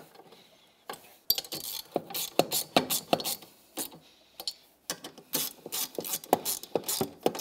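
Hand ratchet clicking in short quick runs, starting about a second in, as the mounting bolts of a new ATV regulator rectifier are tightened to its metal bracket.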